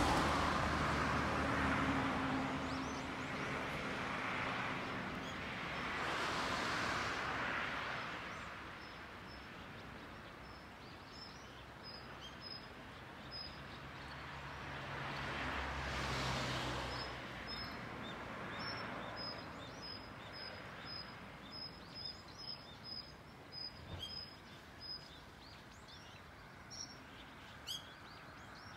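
Outdoor ambience: a vehicle passes by twice, swelling and fading in the first eight seconds and again around the middle. From about eleven seconds to twenty-five seconds a small bird repeats short, high chirps.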